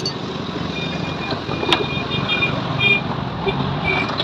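Steady street traffic noise with several short high-pitched beeps in the middle and near the end, and a single sharp click just before the beeps start.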